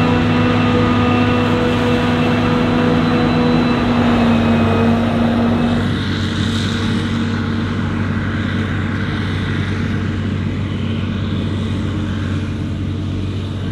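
Maize-harvesting machinery running steadily, with engine drone and a steady whine from a forage harvester and tractors. About six seconds in the sound changes abruptly and the whine drops away, leaving a lower, softer drone.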